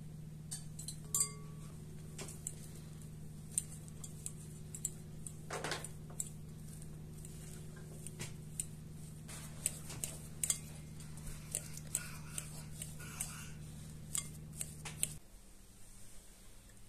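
Metal fork mashing boiled potatoes in a glass bowl, clinking and tapping against the glass many times, with one sharper ringing clink about a second in. A steady low hum underneath cuts off near the end.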